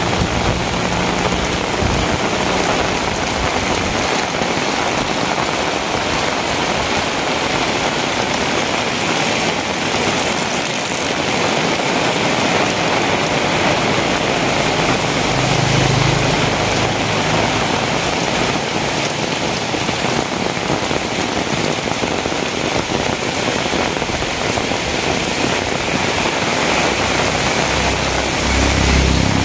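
Heavy rain falling steadily, a dense, even hiss of drops on hard surfaces. A brief low hum rises under it about halfway through and again near the end.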